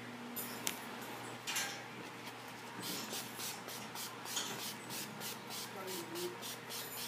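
A pump spray bottle of makeup setting spray misting in a rapid series of short spritzes, about three a second. Before that come a single click and a brief rustle.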